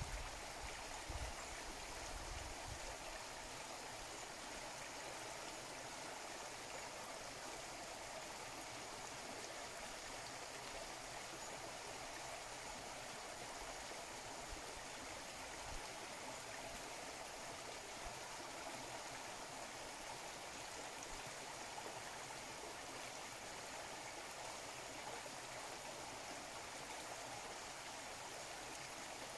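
A rocky river running over stones: a steady rushing, babbling flow of water, with a brief low rumble near the start.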